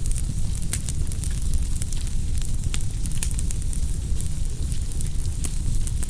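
Wood fire burning: a steady low rumble of flames with irregular sharp crackles and pops of the burning wood, several a second at times.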